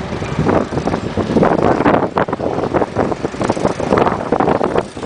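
Wind buffeting the camera microphone, an irregular, gusty rumble.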